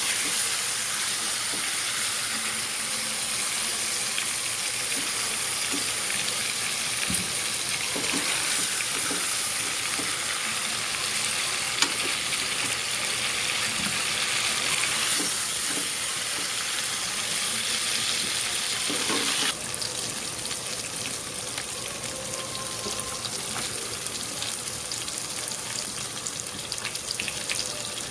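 Chicken pieces frying in hot oil in a pan: a steady sizzle with a few light knocks of a utensil. About two-thirds of the way through, the sizzle drops suddenly to a quieter level.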